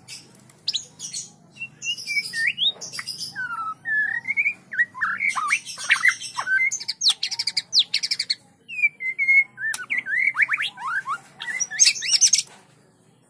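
White-rumped shama singing a long, varied song in short phrases with brief pauses: clear whistled notes that slide up and down, mixed with rapid, scratchy high trills.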